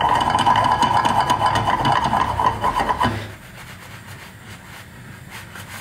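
Small electric kitchen motor running with a steady whine for about three seconds, then cutting off suddenly.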